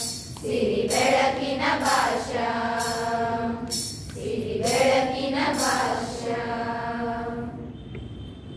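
Group of young women singing a Kannada patriotic song together in unison, in long held notes; the singing stops and dies away near the end.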